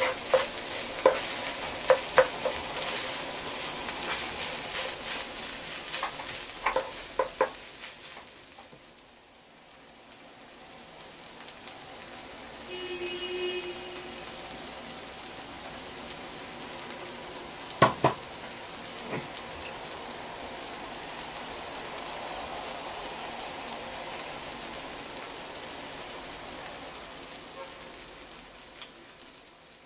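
Fried rice sizzling in a nonstick frying pan. For the first several seconds a wooden spatula scrapes and clacks against the pan as the rice is stirred. A single sharp knock comes about eighteen seconds in, and the sizzling then carries on steadily.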